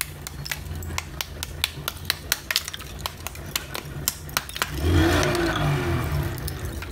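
Small hammer tapping repeatedly on slabs of roasted multani mitti (fuller's earth clay), sharp clicks about four a second. About four and a half seconds in, the tapping stops and a louder dry crunching follows as the clay layers are pulled apart by hand.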